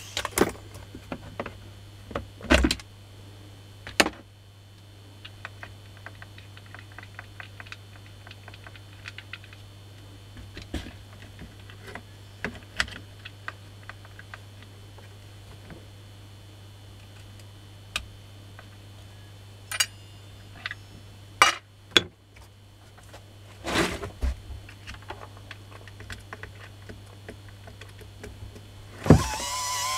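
Clicks, knocks and rattles of plastic housing parts and a screwdriver being handled as a Makita 9237CB polisher is taken apart, with the loudest knocks a few seconds in and again about two-thirds through. About a second before the end the polisher's electric motor starts up with a rising whine.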